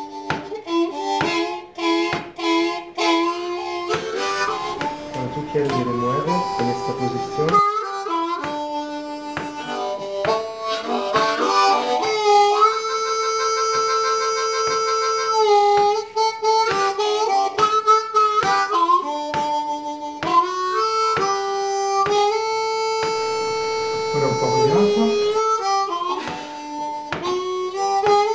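Background music led by a harmonica, playing long held notes and chords over a steady rhythmic accompaniment.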